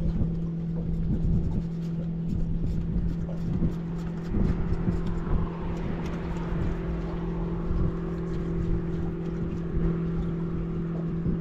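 Boat engine running at a steady pitch while under way, with irregular knocks and splashes of the hull on choppy water.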